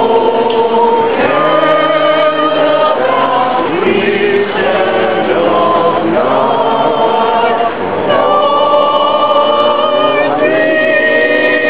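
A group of voices singing together in unison or harmony, holding long notes.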